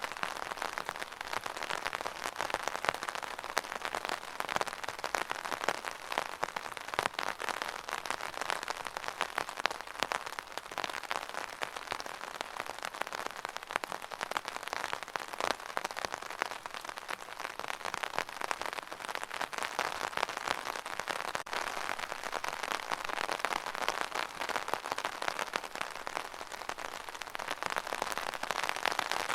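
Steady rain: a dense, even patter of drops that keeps on without let-up.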